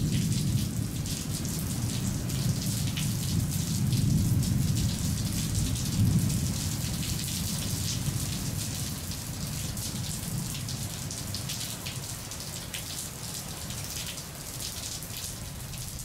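Steady rain with low rolling thunder, slowly fading out.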